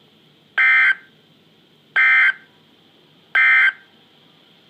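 Emergency Alert System end-of-message signal: three short, buzzy digital data bursts about a second and a half apart, marking the end of the alert broadcast.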